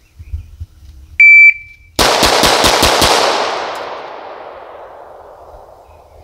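A shot timer beeps once, then a Gen 3 Glock 17 9mm pistol fires six fast shots in about a second for a timed bill drill. The echo of the shots fades out over the next few seconds.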